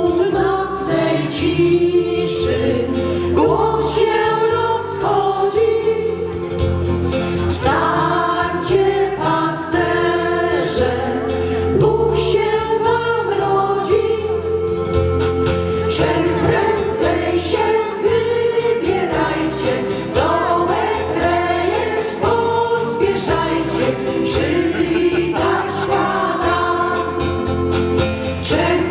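A small mixed group of women's and men's voices singing a Polish Christmas carol into microphones, amplified through stage speakers, over an instrumental accompaniment with steady bass notes and an even beat.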